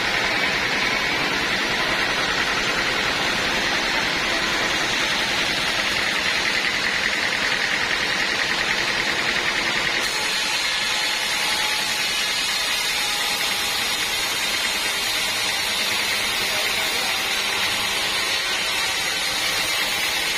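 Sawmill band saw running steadily, a loud, even noise with a steady high whine.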